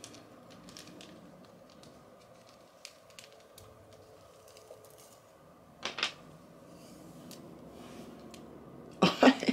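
Faint clicks and small handling noises as hair rods are taken out of set hair, over a steady low room hum. A short louder sound comes about six seconds in, and a brief voice sound near the end.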